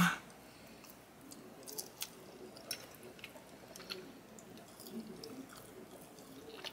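A person chewing a mouthful of creamy chicken Alfredo pasta, with soft wet mouth sounds and a scatter of small faint clicks.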